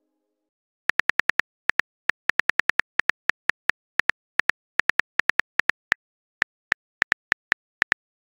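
Phone keyboard typing clicks from a texting-app sound effect: a quick, irregular run of short sharp clicks, several a second, starting about a second in.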